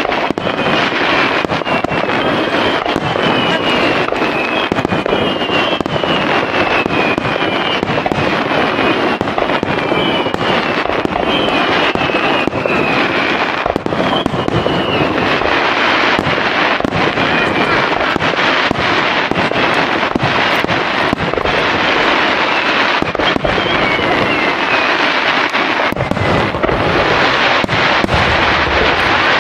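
Starmine fireworks barrage: a continuous dense stream of shell bursts and crackle, with short falling whistles in the first half and heavier, deeper booms coming in near the end.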